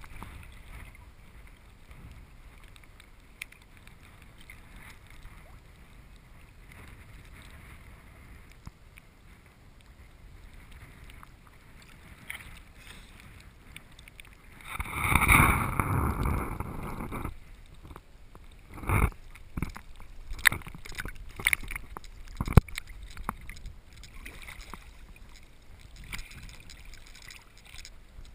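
Water lapping and sloshing against a camera held half-submerged at the sea surface, low and steady at first, then a louder gush of water for about two seconds around the middle, followed by scattered sharp splashes.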